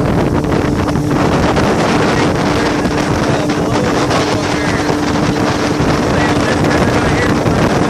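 Motorboat running at full throttle with a steady engine drone, under heavy wind noise on the microphone and water rushing past the hull.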